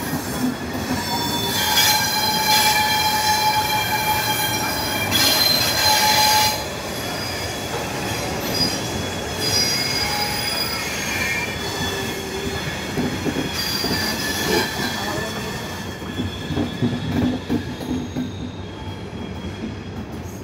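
Passenger train's wheels squealing against the rails as it rolls slowly, several high screeching tones over a running rumble. The squeal is loudest from about two seconds to six seconds in, and again briefly about two-thirds of the way through.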